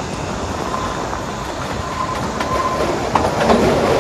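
Kalka–Shimla narrow-gauge toy train running at low speed: steady rumble and clatter of the coach wheels on the track, with a faint thin wheel squeal through the middle. The running noise grows louder near the end.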